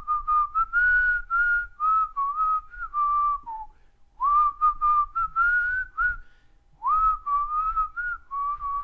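A person whistling a short tune in three phrases separated by brief pauses, each phrase starting with a quick upward slide into the note.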